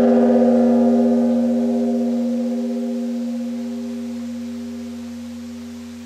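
A temple bell ringing after a single strike, a steady hum of several tones that slowly fades away.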